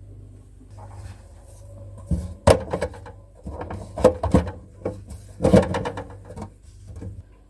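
Plastic containers and refrigerator drawers being handled, with a run of knocks and clatters, the busiest stretch about two-thirds of the way through, over a low steady hum.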